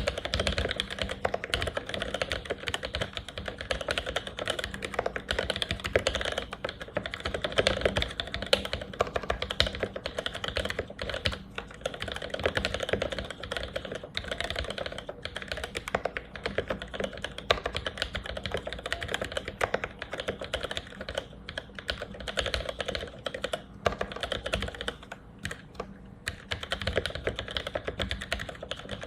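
Fast continuous typing on a mechanical keyboard with vintage Cherry MX Black linear switches, lubed with Krytox 1514, with 63.5 g springs and GMK keycaps: a dense run of keystroke clacks, easing off briefly near the end.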